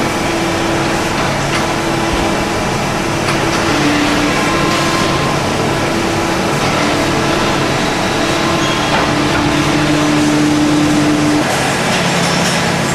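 Production-line machinery running steadily: a loud, even noise with hum tones that hold for a second or so and then shift in pitch, changing character near the end.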